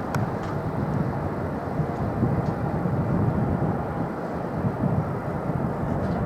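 Low, uneven rumble of jet airliner engines at an airport.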